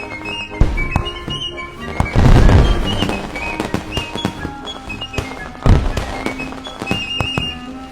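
Fireworks going off over music with a steady melody: deep booms about half a second, two seconds and nearly six seconds in, the one at two seconds the loudest, with lighter crackles between.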